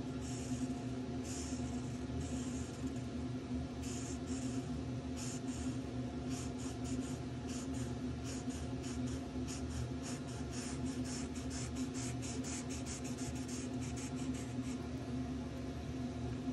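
Marker tip scratching across sketchbook paper in short strokes, quickening into rapid back-and-forth strokes while a dark area is filled in, then stopping shortly before the end. A steady low hum runs underneath.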